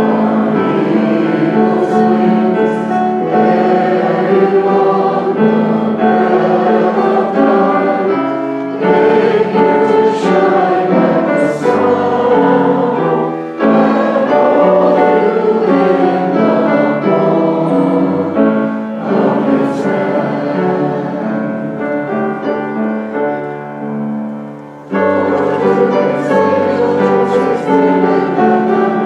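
Many voices singing a hymn together with instrumental accompaniment, in long held phrases with short breaths between them.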